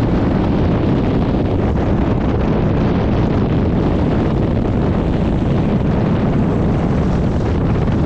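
Strong wind, about 20 knots, buffeting the microphone in a steady loud rush, with wind-driven waves breaking and washing over rip-rap rocks underneath.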